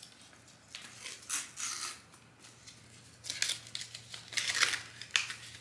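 A seed packet crinkling and rustling as it is opened and handled by hand, in short spells, one about a second in and a longer one in the second half.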